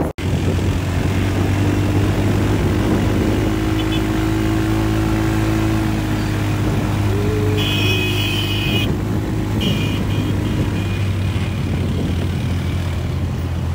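Off-road vehicle engine running steadily while driving along a muddy dirt track. A quad bike is running just ahead. A higher tone sounds briefly twice about 8 and 10 seconds in.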